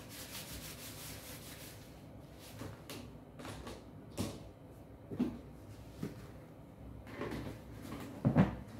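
Plastic parts of a Juniors steam sterilizer being wiped with a tissue and fitted together: a rubbing rustle at first, then several light plastic knocks and clacks. The loudest comes near the end, as the clear cover is set on the base.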